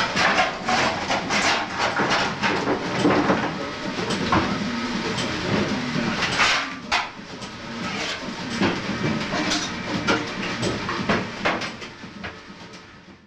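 Irregular clanks, knocks and scrapes of a coal shovel and fire door as the coal-fired boiler of a 1920s steam launch is stoked, over the steady running noise of the steam plant. The sound fades near the end.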